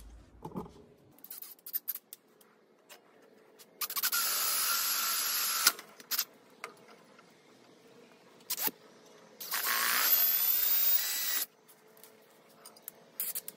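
Cordless drill boring mounting holes through a forged steel bar. There are two runs of about two seconds each, with small handling clicks and knocks between.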